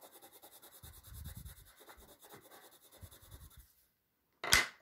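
A red colored pencil shading on paper with quick back-and-forth scratchy strokes, which stop a little before the end. Then comes a single sharp knock.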